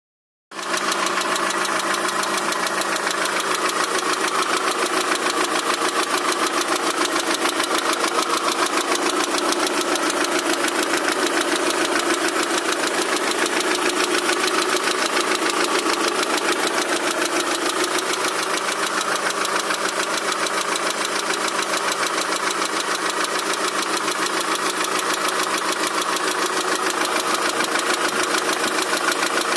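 Daewoo Nexia 16-valve four-cylinder engine running steadily with a fast, even knocking from inside the engine. The knock is present whether the engine is cold or hot; its cause is not known.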